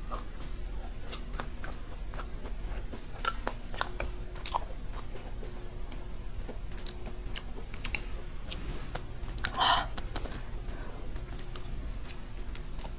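Close-miked ASMR handling of a shell-shaped macaron: scattered small clicks and crackles as fingers press and turn its crisp shell and cream. A short, louder rustle comes about ten seconds in.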